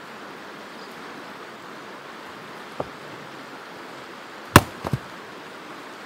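Axe strikes on wood: a light knock about three seconds in, then a loud, sharp chop about halfway through the second half, followed at once by two smaller knocks. All of it sits over a steady background rush of noise.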